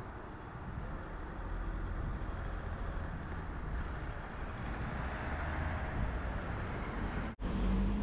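Street traffic: cars driving past with a steady tyre and engine hum and a low rumble, swelling as a car passes close. The sound drops out for a moment near the end.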